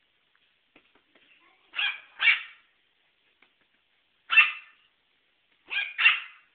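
Small dog barking in short, sharp barks: two close together, a single one a couple of seconds later, then another quick pair near the end.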